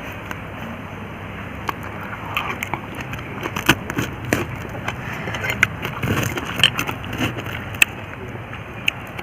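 Cutlery clicking and clinking against plates: a scatter of short, sharp sounds over steady background noise.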